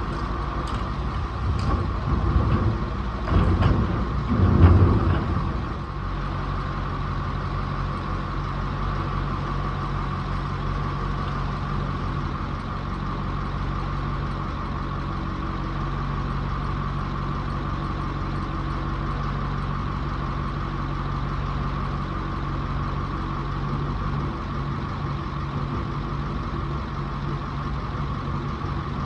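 A motor vehicle's engine running steadily, with a few louder knocks and surges in the first several seconds before it settles to an even hum.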